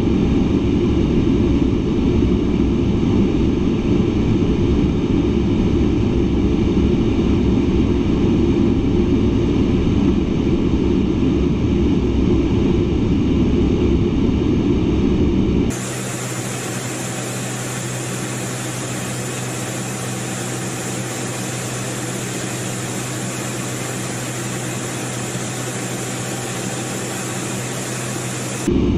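Steady in-flight cockpit noise of an A-10 Thunderbolt II jet, engines and rushing air, loud and deep. About halfway through it cuts abruptly to a quieter, thinner steady drone with a low hum and a high hiss, then cuts back to the deep noise just before the end.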